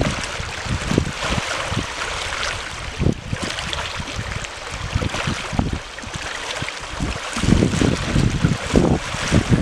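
Waves on a dam reservoir washing and splashing, with wind buffeting the microphone in irregular low rumbles that grow heavier near the end.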